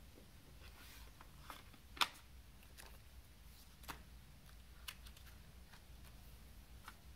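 Handling of a plastic CD jewel case: a few sharp plastic clicks and light taps, the loudest about two seconds in, with smaller clicks near four and five seconds.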